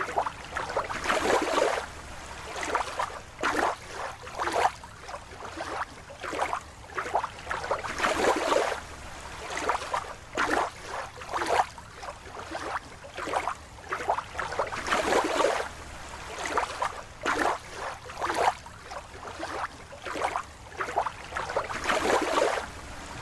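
Water sloshing and splashing in irregular swishes, roughly one a second.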